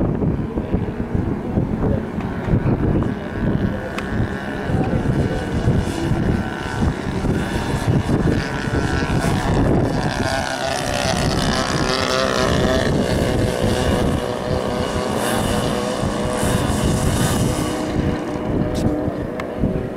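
Gusty wind buffeting the microphone over the distant buzz of a radio-controlled Super Sport 40S model plane's engine in flight. The engine tone drifts up and down in pitch and is clearest in the second half.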